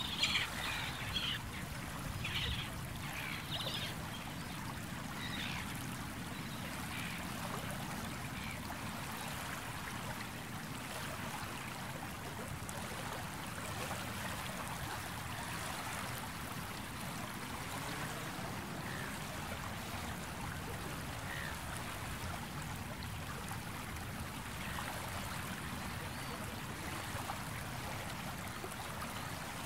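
Small sea waves lapping and washing steadily against the shore, with a few short bird calls in the first few seconds.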